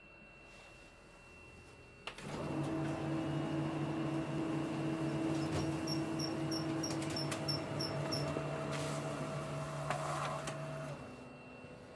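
Office photocopier making a copy: it starts with a click about two seconds in, then runs with a steady mechanical hum and whir, with a row of about eight quick high ticks midway, and winds down near the end.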